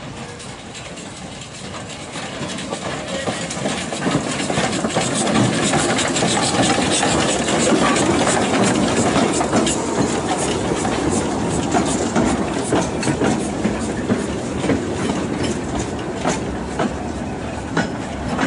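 Narrow-gauge 0-4-0 tank steam locomotive and its coaches passing slowly, the sound building over the first few seconds, then the coaches' wheels clicking over the rail joints as they roll by.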